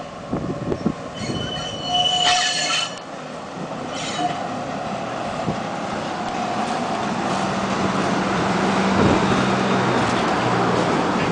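Sugar cane train with its Clyde diesel locomotive and cane wagons passing: wheels squealing in high tones about a second in and again near four seconds, then a steady rumble that builds with a low engine note.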